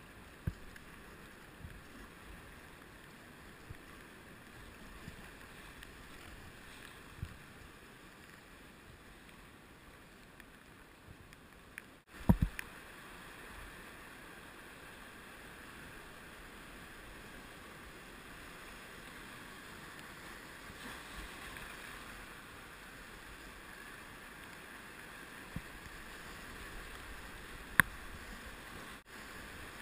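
Whitewater rapids rushing, a steady hiss of moving water, with scattered low knocks. There is a loud thump about twelve seconds in and a sharp click near the end.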